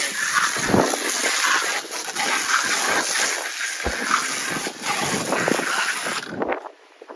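Pressure washer wand spraying cleaning chemical, a steady hiss and splatter of water that cuts off suddenly about six seconds in as the trigger is released.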